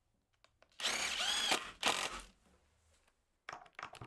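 18V cordless driver driving a long wood screw into pine: a motor whine of about a second that rises and then drops in pitch, a shorter burst just after, then a few faint clicks near the end.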